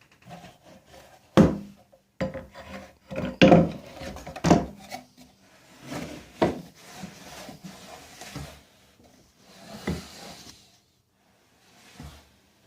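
Homemade wooden table saw fence being slid along its hardwood rail track, wood rubbing and scraping against wood, with several sharp knocks as it is pushed and stopped.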